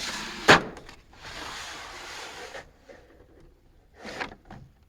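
Plastic tool case and its contents being handled: two stretches of rubbing and sliding, a sharp click about half a second in, and a few light knocks near the end.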